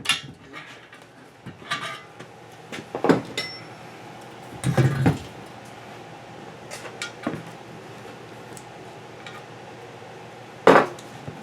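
Scattered metal clinks and knocks of hand tools and parts being handled during swingarm bearing work, with a louder cluster about halfway and a sharp knock near the end.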